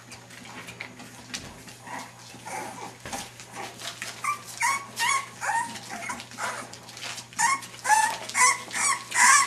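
Five-week-old English Bulldog puppies whining and yipping: a string of short, high-pitched calls that come louder and more often in the second half.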